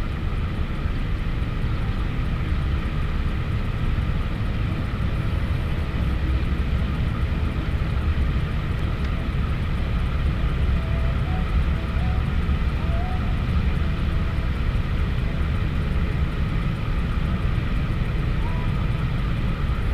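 A steady engine drone over a low rumble, holding an even pitch without rising or falling.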